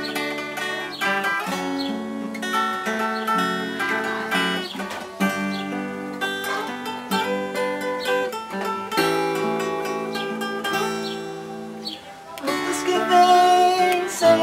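Two acoustic guitars playing the instrumental introduction to a hymn, strummed and picked chords changing steadily. The playing dips briefly about twelve seconds in, then comes back louder.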